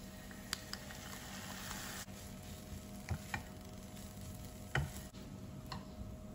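Fried rice being stirred in a nonstick frying pan with a silicone spatula and a spoon: soft scraping of the rice with about half a dozen light knocks of the utensils against the pan, the loudest a little before five seconds in. A faint patter early on fits salt being sprinkled over the rice.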